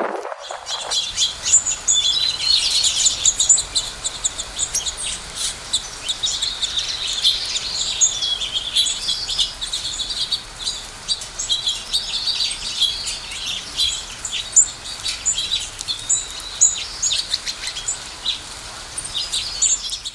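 Songbird chirping: a rapid, continuous run of short, high chirps and trills that starts about a second in and cuts off abruptly at the end.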